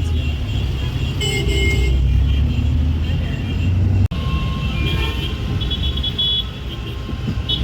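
City street traffic: a loud low rumble of car engines, with short car-horn toots about a second and a half in and again around six seconds in.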